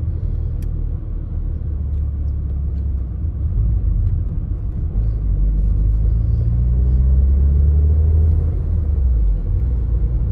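Volkswagen Golf engine running as the car drives off, a low rumble that rises in pitch as it accelerates about halfway through, then eases off near the end.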